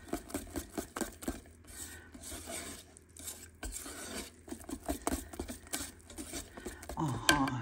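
Wire whisk beating thick flour-and-milk yeast batter in a stainless steel pot, its wires clicking and scraping against the pot in a quick, irregular rhythm. A brief voice sounds near the end.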